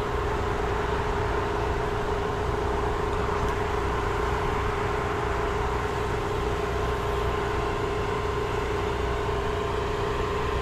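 Soft-wash spray rig's motor running steadily, a constant hum at one unchanging pitch over a rushing noise.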